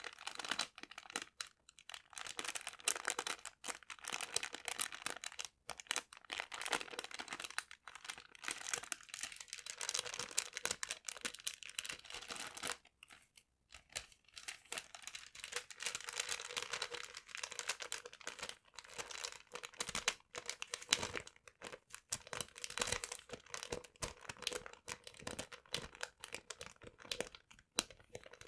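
Paper being handled close to the microphone, crinkling and crumpling in dense, irregular crackles, with a brief pause about 13 seconds in.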